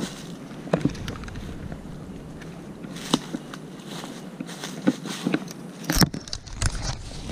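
Footsteps crunching through dry leaf litter, coming as uneven crackling steps. About six seconds in comes a loud knock and rubbing as something brushes right against the camera.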